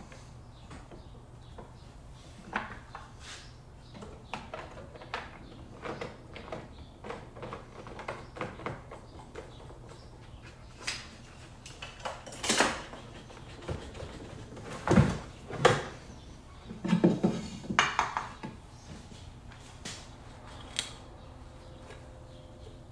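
Irregular clicks, taps and knocks of small plastic and metal chainsaw parts being handled as the air filter is refitted, with a cluster of louder clunks around the middle.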